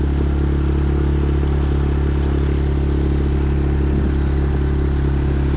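Inflatable boat's outboard motor running steadily at cruising speed, with an even, unchanging engine note and water noise.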